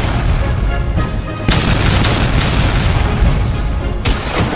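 Artillery fire sound effects: two heavy cannon booms, about a second and a half in and again near the end, over a continuous low rumble and background music.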